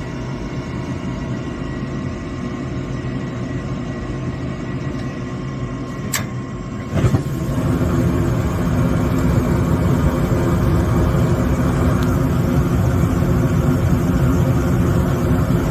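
Gas furnace running through its ignition sequence: a steady mechanical hum, a sharp click about six seconds in, then from about seven seconds a louder, deeper rumble.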